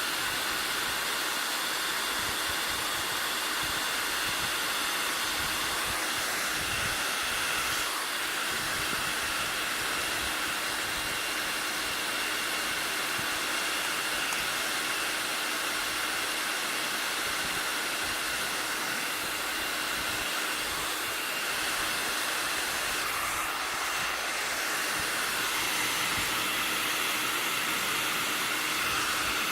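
Hair dryer blowing steadily on a fidget spinner to make it spin fast: a continuous rushing hiss with a faint steady whine, unchanging throughout.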